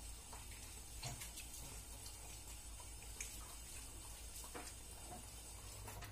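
Kitchen tap running faintly while hands are washed with soap under it, with a few light clicks and knocks. The water stops at the very end.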